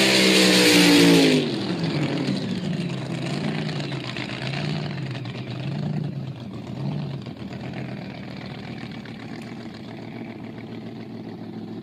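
Speedboat engine at full throttle passing close by, its pitch dropping sharply about a second in as it goes past, then fading as the boat runs away across the water, its pitch wavering.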